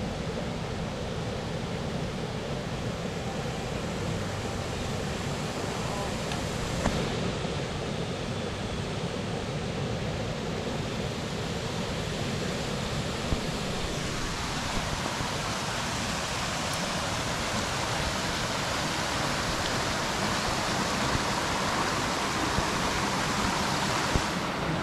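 Steady rush of water from a mountain stream or cascade. About fourteen seconds in, the rush turns brighter and a little louder.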